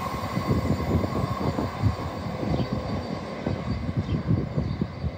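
A train running away down the line, its rumble fading as it recedes, with a faint steady whine and irregular low buffeting throughout.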